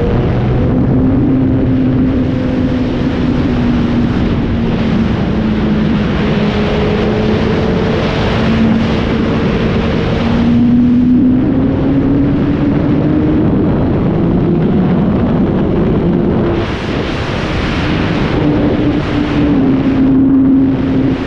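Suzuki GSX-R motorcycle engine running under way, its note holding steady and climbing slowly in places, under heavy wind rush on the microphone that surges a few times near the end.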